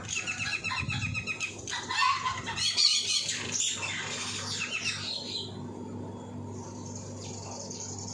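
Mynas calling and chattering in a noisy jumble of harsh, rapid notes for about five seconds, then dying away so that only a faint low hum and a few distant calls remain.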